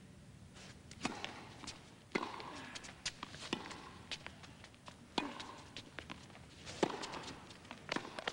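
Tennis rally: a run of sharp racket-on-ball strikes and ball bounces, roughly one a second, over a faint crowd murmur.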